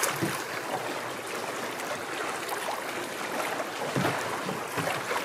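Steady wash of fast-flowing flood-swollen river water around a small boat's hull, with a few soft knocks about four seconds in.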